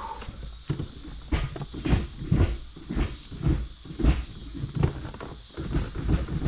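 Gear shifter of a Honda Civic Type R manual gearbox being worked through the gates on freshly reconnected shift cables: about a dozen dull clunks, roughly two a second.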